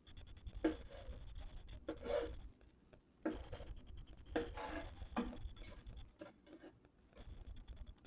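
Irregular scraping and rubbing with light clinks, from kitchen utensils and cookware being handled while preparing food.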